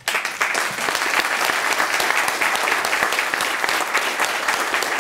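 Audience applauding: many hands clapping at once, breaking out all together and going on steadily.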